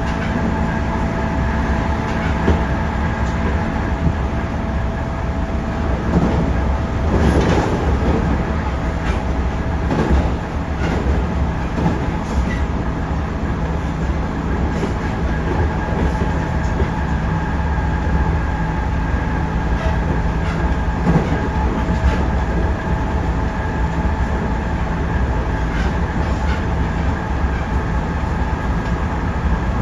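JR Central 311 series electric multiple unit running at a steady speed, heard from inside the car: a constant hum with a few steady tones, and wheels clicking over rail joints now and then.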